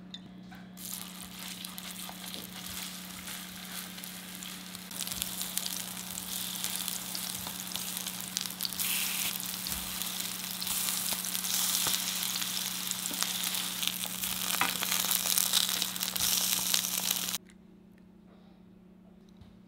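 Small egg-batter pancakes frying in oil in a nonstick frying pan: a steady sizzle that grows louder, with scattered clicks, then stops abruptly near the end.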